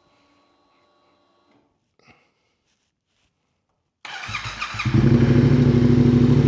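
Motorcycle engine cranked over and catching about four seconds in, then settling into a steady loud idle through the exhaust with its muffler can freshly refitted. The note is one the owner calls in tune.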